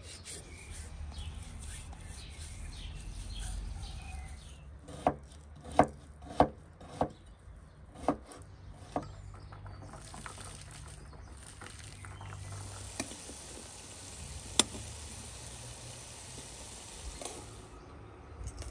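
A knife chopping on a wooden board: about six sharp knocks, irregularly spaced, roughly half a second to a second apart. They are followed by a steady high hiss lasting several seconds, with two more single knocks in it.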